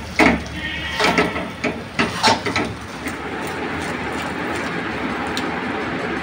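Wooden spatula stirring and scraping a thick, sticky dalia-and-sugar laddu mixture in a nonstick pan, several loud scraping strokes in the first three seconds, then a steady hiss.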